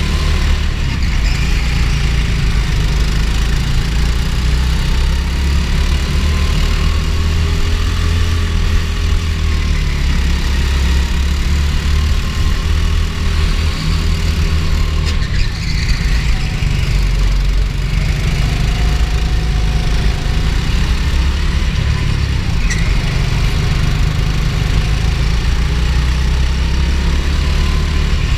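Go-kart engine running from on board at racing speed, its revs rising and falling as the kart goes through the corners.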